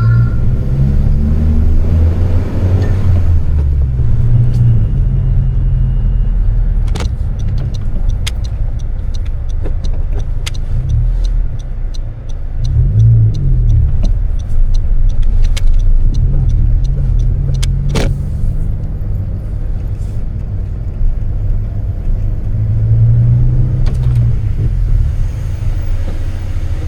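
2020 Honda Civic Si's turbocharged four-cylinder engine driving in traffic. It rises in pitch as it accelerates in the first few seconds, then settles into a steady low rumble with a few surges. A regular ticking runs through the middle stretch, with a couple of sharp clicks.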